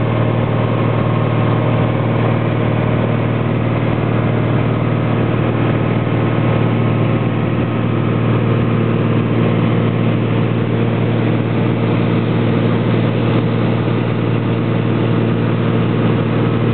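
Small single-engine propeller plane's piston engine and propeller droning steadily at cruise, heard from inside the cockpit.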